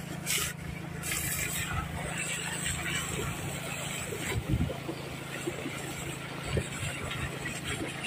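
Hose water jet spraying and splashing onto the mud-caked tracks and undercarriage of a rice combine harvester, over the steady hum of a small engine running.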